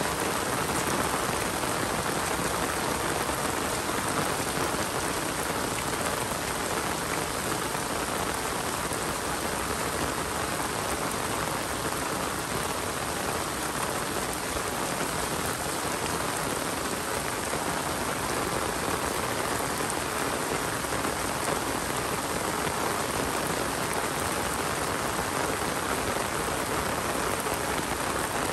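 Steady rain falling, an even, unbroken hiss of drops on surfaces.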